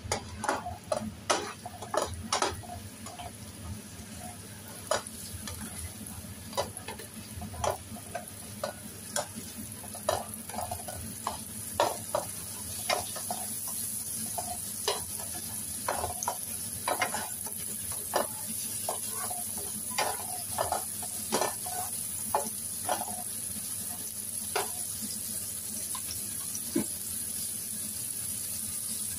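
Shrimp and scallops sizzling in butter in a nonstick frying pan, with a spatula scraping and tapping the pan at irregular moments as they are stirred. The sizzle grows a little louder toward the end.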